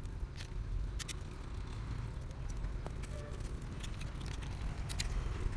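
Scattered sharp clicks of snail shells being handled for bait, over a steady low rumble.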